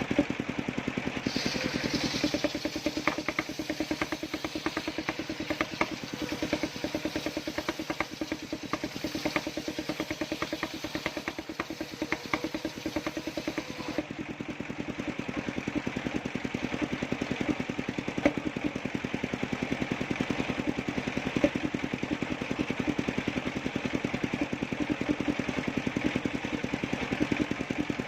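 Engine powering a homemade circular-blade sawmill, running steadily with a fast, even firing rhythm.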